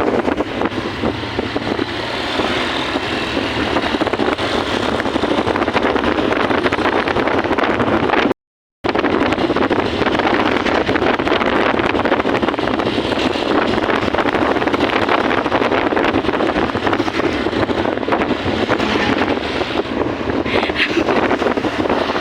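Loud, steady wind rushing over the microphone of a moving vehicle, mixed with road noise. The sound cuts out completely for a moment about eight seconds in.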